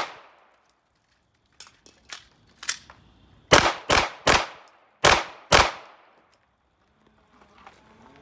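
Semi-automatic pistol fired in a string: a shot right at the start, then three quick shots and two more about three and a half to five and a half seconds in, with a few much fainter pops around two seconds in.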